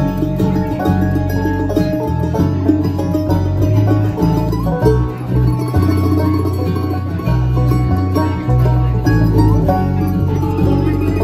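Bluegrass band playing live: banjo, mandolin, acoustic guitar and electric bass together, with steady bass notes under quick plucked strings.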